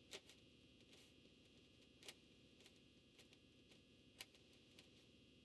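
Near silence with a few faint clicks, three of them a little clearer and about two seconds apart: a flexible dust collection hose being handled and worked off a table saw's dust port.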